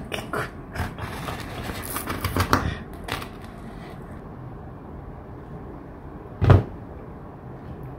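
Durians being handled on a tabletop: a few light knocks and rustles in the first three seconds, then one dull thump about six and a half seconds in.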